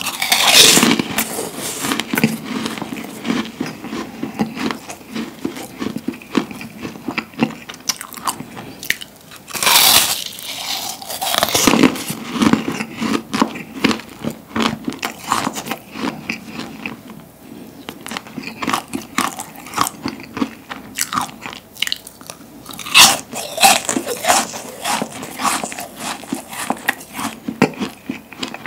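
A large crisp meringue cookie being bitten and crunched while chewing, with a steady run of crackles as it breaks up in the mouth. Louder bites come at the start, about ten seconds in, and again later on.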